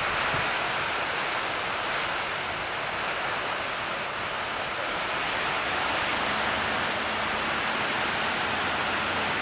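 Steady rushing of hurricane wind and driving rain.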